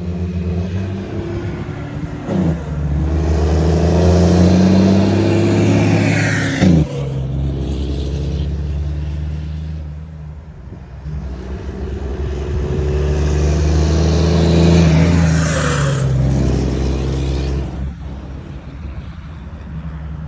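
Two Volvo FH trucks drive past one after the other, their diesel engines accelerating hard with a deep exhaust rumble. Each one's pitch climbs as it pulls, then falls away as it passes; the first drops off sharply about seven seconds in, and the second peaks around fifteen seconds.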